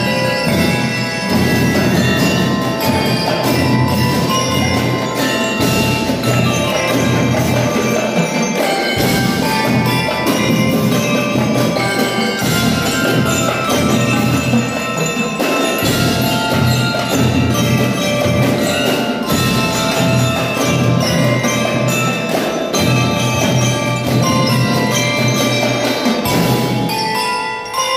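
Drum and lyre band playing live: bell lyres ring out a melody over a steady beat of marching drums.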